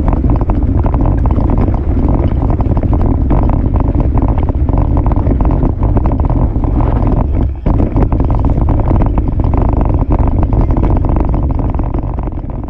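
Wind buffeting a mountain bike camera's microphone, mixed with tyre noise and frame and chain rattle as the bike rides a dirt trail: a loud, steady rumble full of quick clicks. It fades out near the end.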